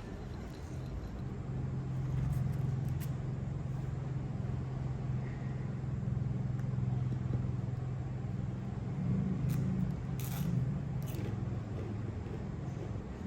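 A steady low engine-like hum that builds a second or two in and holds, with a few light clicks.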